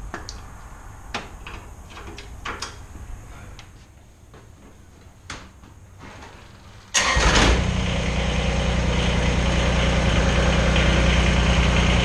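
A few light clicks and knocks, then about 7 seconds in the Kubota BX25 tractor's three-cylinder diesel engine starts and settles into a steady idle.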